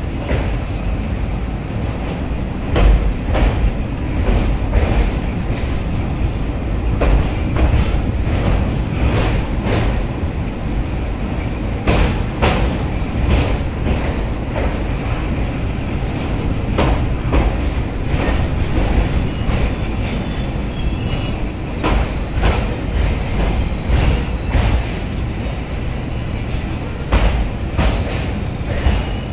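Passenger express train running along the track, with a steady low rumble and irregular sharp clacks from the wheels over rail joints. A thin high wheel squeal sits above it.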